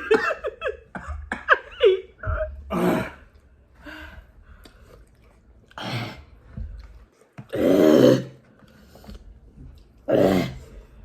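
A person coughing and blowing out hard breaths in separate bursts a few seconds apart, the loudest near the end, reacting to the burn of very hot Buffalo Wild Wings Blazin' sauce. Short throaty vocal noises come before the bursts.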